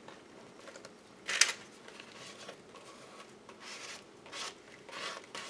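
Paper rustling as collage paper is handled: one sharp, loud rustle about a second and a half in, then several softer rustles.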